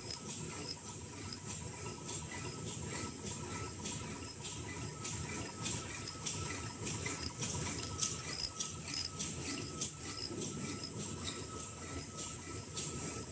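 Automatic KF94 mask-making machine running: a steady hiss with fast, regular light clicking and a faint steady whine.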